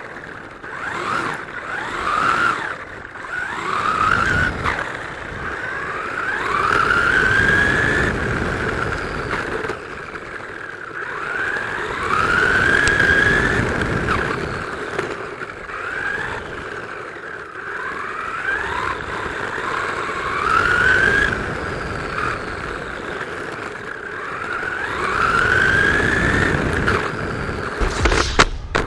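Wltoys 124019 RC buggy's electric motor and drivetrain whining up in pitch again and again as the car accelerates, about seven times, heard from a camera on the car, over a constant rumble of tyres and chassis.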